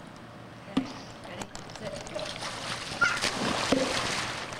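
Swimming pool water splashing, with a sudden big splash about three seconds in and about a second of spray after it.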